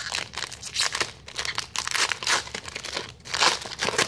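A trading-card pack's wrapper being torn open and crinkled by hand as the cards are pulled out: an irregular crackly rustle with many small snaps, loudest about three and a half seconds in.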